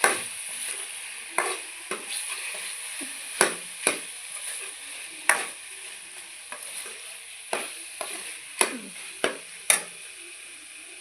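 Potatoes and peas sizzling as they fry in a pan, with a steady hiss, while a spoon stirs them and knocks and scrapes against the pan at irregular moments, about a dozen times.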